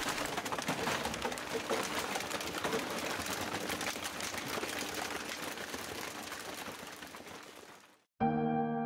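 Plastic bottles crackling and ticking densely as a baling press squeezes them, over a faint steady machine hum, fading away. Soft piano music starts just before the end.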